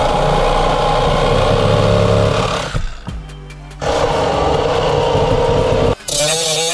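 A power tool running in two bursts of about three and two seconds with a short pause between, cutting away sheet metal from the car's transmission-tunnel floor. Near the end a different sound with a wavering pitch takes over.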